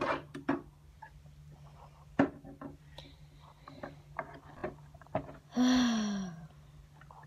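Scattered light clicks and knocks of a plastic toy dollhouse and its dolls and furniture being handled. About two-thirds of the way in comes a louder pitched sound lasting about a second that falls in pitch, over a steady low hum.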